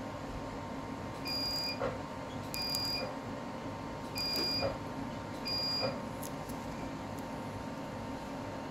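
Medical skin-removal laser sounding its short high emission beep with each pulse, four times about 1.3 seconds apart, over a steady background hum. A few faint clicks follow.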